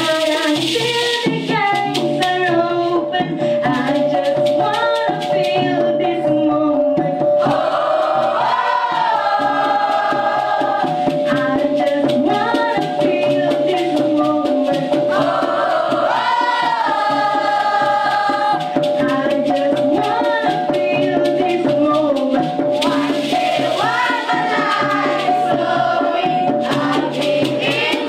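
Dikir barat: a group of young voices singing in unison, with a lead voice, over the steady fast shaking of maracas and other percussion.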